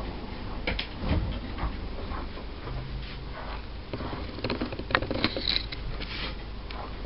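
Soft, irregular scuffs and taps of a Wheaten Terrier puppy being brushed and shifting its paws on a ribbed rubber grooming-table mat.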